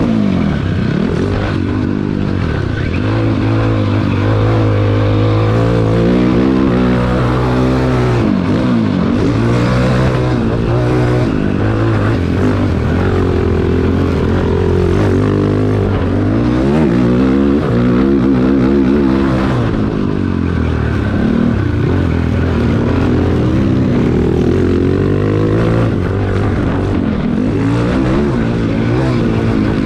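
Cannondale quad's single-cylinder four-stroke engine under way, revving up and down again and again as the rider accelerates, shifts and backs off, with brief drops in pitch between pulls.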